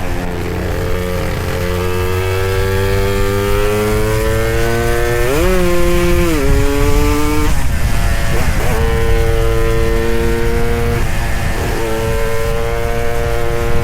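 Suzuki Satria 120 single-cylinder two-stroke motorcycle engine under way, its pitch climbing steadily as it pulls, a quick rise and drop about halfway through, then holding a steady pitch. Low wind rumble runs underneath.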